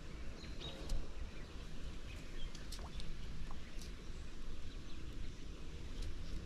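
Outdoor creek-side ambience: a steady low rumble with scattered small high ticks and a few faint bird chirps.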